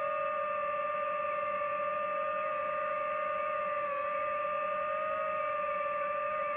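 DJI FPV drone's motors and propellers whining at a steady pitch while it hovers and descends, with a few slight dips and rises in pitch as the throttle changes.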